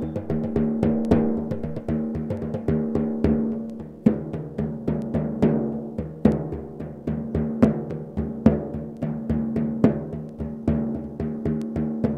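Several frame drums played by hand at once, struck in a quick, steady rhythm of several strokes a second, with a ringing drum tone held under the strokes.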